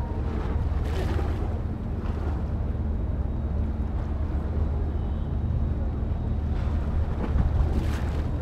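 Harbour water lapping and splashing against a stone quay, with a few louder splashes about a second in and near the end, over a steady low rumble of wind on the microphone and a faint steady hum.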